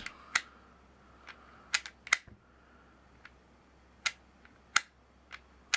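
Light, irregular clicks and taps of a Smith & Wesson Shield 9mm Performance Center pistol being handled: the slide is pressed and wiggled to check its play against the barrel hood.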